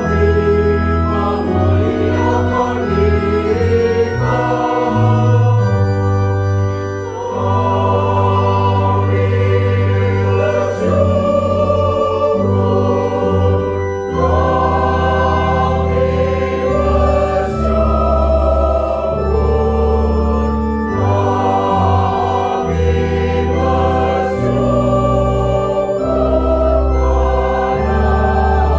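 Mixed choir of women and men singing a sacred song, accompanied by an organ holding sustained chords.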